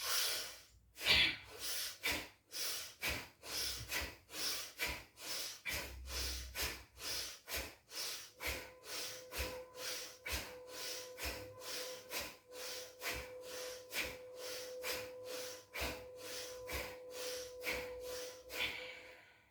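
Bhastrika pranayama (bellows breath): rapid, forceful breaths in and out in a steady rhythm of about two strokes a second, stopping just before the end.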